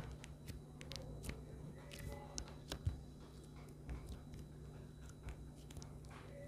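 Homemade glue slime being squeezed and stretched by hand, giving scattered small sticky clicks and pops at an irregular pace, over a steady low hum.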